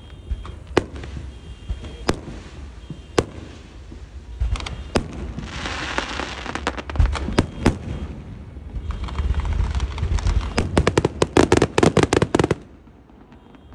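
Fireworks going off: single sharp bangs every second or so, a crackling shower about six seconds in, and then a dense, rapid string of crackling pops near the end that stops suddenly.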